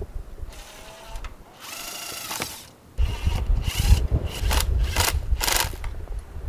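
Cordless drill driving screws: a short motor whine, then several brief bursts, with wind buffeting the microphone.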